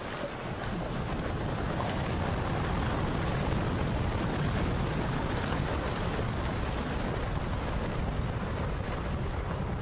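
Rockslide: rock and debris coming down a cliff face onto a road, heard as a steady, dense rumbling noise, heaviest at the low end, that swells about a second in and holds.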